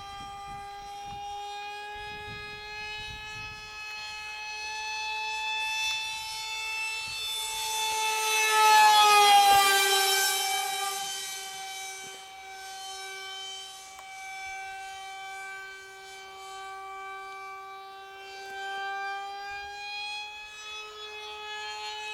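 Radio-controlled model MiG jet's motor whining in flight, one steady high tone with overtones. It swells to its loudest about nine seconds in as the model passes close overhead, the pitch dropping as it goes by, then settles back to a steady whine.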